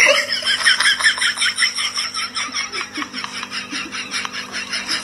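A person laughing hard and continuously, in a fast, even run of short 'ha' pulses.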